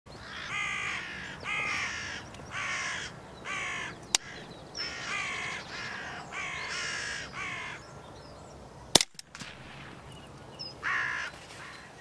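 Hooded crows cawing: two runs of about four hoarse caws each, then one more caw near the end. A single sharp crack about nine seconds in is the loudest sound.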